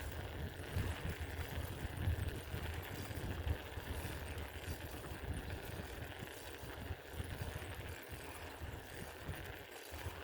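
Bicycle ride heard from the rider: uneven wind rumble on the microphone over rolling tyre noise, fading somewhat in the second half.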